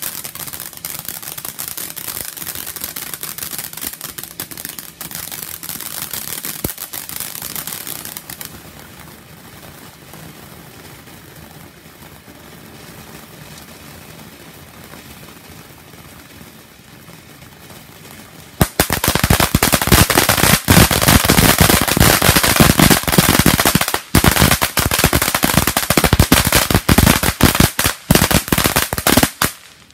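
Burst of Color firework fountain burning: a steady hiss of spraying sparks with crackling, easing off to a quieter hiss after about eight seconds. About nineteen seconds in it breaks into loud, very fast crackling that runs on until it stops just before the end.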